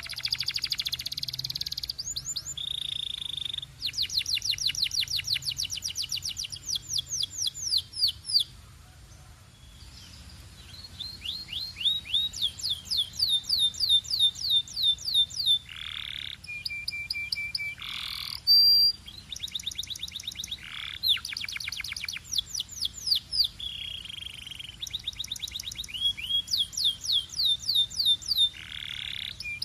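Canary singing in long runs of rapid, evenly repeated high notes (rolls and trills), broken by a short pause and by a few longer sweeping notes.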